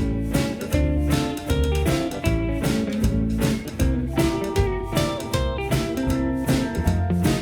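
Background music: guitar-led, blues-style tune with a steady drum beat.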